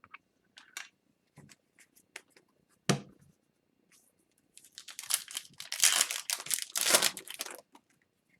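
A single thump on the table about three seconds in, then about three seconds of loud crinkling and tearing of a foil hockey-card pack wrapper being handled and torn.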